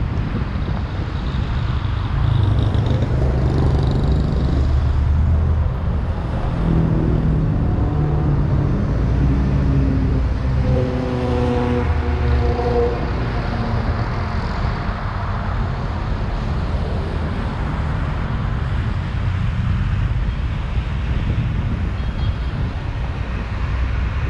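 Steady low rumble of a car driving in road traffic: engine and tyre noise with wind on the microphone. For a few seconds around the middle, a pitched engine hum from a nearby vehicle joins in.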